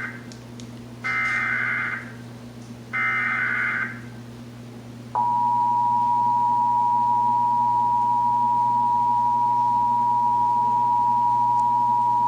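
Emergency Alert System tones: the end of one SAME data-header burst, then two more short data bursts about a second each, followed about five seconds in by the steady two-tone EAS attention signal, which holds to the end. Together they open a Required Monthly Test of the Emergency Alert System.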